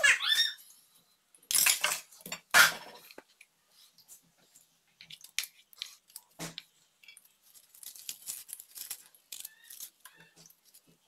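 Kitchen handling sounds on a tiled counter: a few loud clatters and rustles about two seconds in, then lighter knocks and scrapes. A brief high wavering squeal is heard at the very start.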